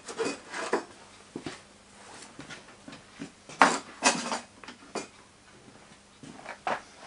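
Irregular clatter of short knocks and scrapes from moulding flasks, tools and sand being handled around a metal wheelbarrow, with a louder cluster about halfway through.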